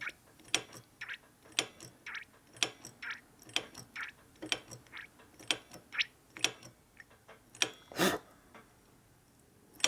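Steady clicking, about two clicks a second, as the motorcycle's hydraulic brake system is pumped during bleeding to push air out of the lines. A louder clack just after eight seconds ends the clicking.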